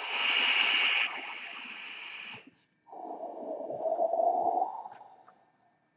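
Vaping on a SMOK G-Priv 220W mod with its sub-ohm tank. First a hissing draw through the atomizer lasts about two and a half seconds. After a brief pause comes a long, lower, breathy exhale of the vapour that fades out near the end.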